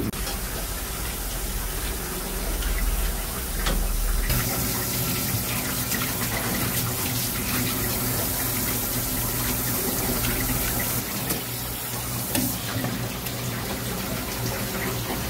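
Tap water running steadily from a spray faucet onto a counter as cuttlefish are rinsed by hand; the rush of water gets brighter about four seconds in.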